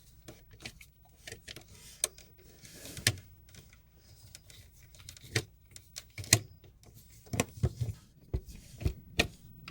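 Screwdriver clicking and tapping against the terminal screw of an electrical receptacle as it is tightened: a string of irregular sharp clicks and knocks, the loudest about six seconds in.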